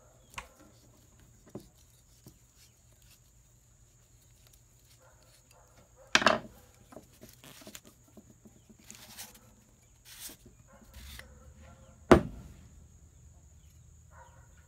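Hand-tool work on a wooden workbench: a flathead screwdriver scraping and clicking as the screw holding the mounting bracket is taken out of an old tractor ignition coil. There are a few sharp knocks as parts are set down on the bench, the two loudest about six and twelve seconds in, over a faint steady high hum.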